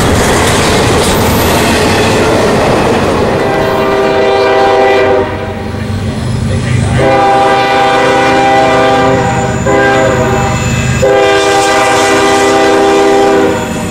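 Double-stack intermodal freight cars rolling past with wheels clattering over rail joints. Then a CSX diesel locomotive's air horn sounds four blasts, long, long, short, long, the grade-crossing signal, as the train approaches.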